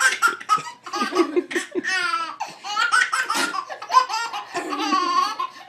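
A baby laughing in a run of short, high-pitched bursts.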